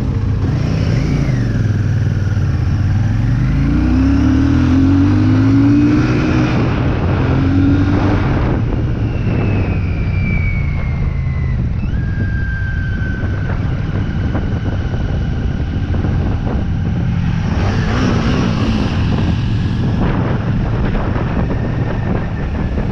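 Royal Enfield Shotgun 650's parallel-twin engine under way, revving up over the first few seconds, dropping back, and pulling again near the end.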